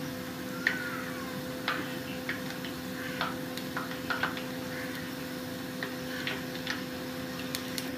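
Gulab jamun dough balls deep-frying in oil on a low flame: scattered, irregular pops and clicks from the oil and the spatula, over a steady low hum.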